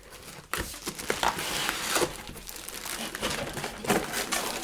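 Packaging being handled and pulled out of a box: paper and plastic crinkling and crackling, with many small sharp clicks, starting about half a second in.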